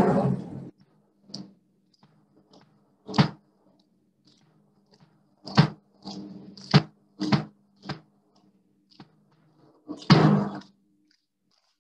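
Irregular sharp knocks of shoes stamping on paving as students march into line and halt, about ten over several seconds, with the loudest thud about ten seconds in. The tail of a drum beat dies away at the very start.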